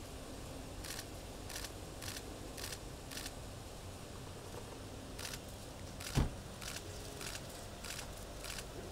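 Camera shutters clicking repeatedly, a short click roughly every half second, with one heavy thud about six seconds in.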